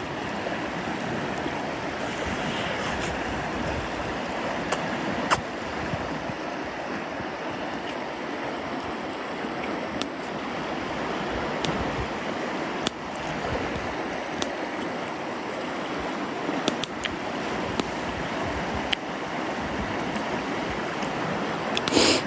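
Mountain stream flowing with a steady rush, with scattered sharp single pops from a wood campfire crackling.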